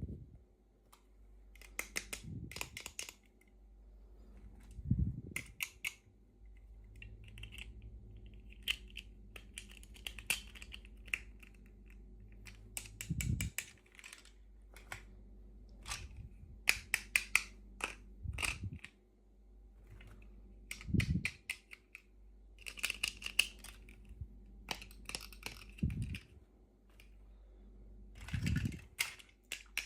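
Small plastic toy packaging being handled and opened: bursts of crinkling and rustling broken by sharp clicks, with a soft thump every few seconds.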